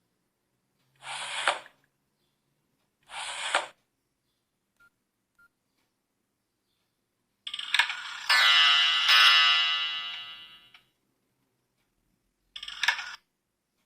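Nokia 3250 mobile phone playing a series of short ringtone and alert tones one after another, with short gaps between them. The loudest is a longer tone about eight seconds in that fades away over about three seconds.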